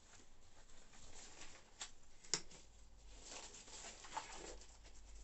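Faint rustling of blue nitrile gloves being pulled onto the hands, with a few light snaps and clicks, the sharpest a little past two seconds in.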